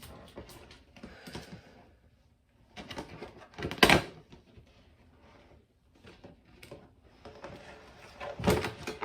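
Handling noises: irregular clicks and knocks with rustling, the loudest a sharp knock about four seconds in and another cluster near the end.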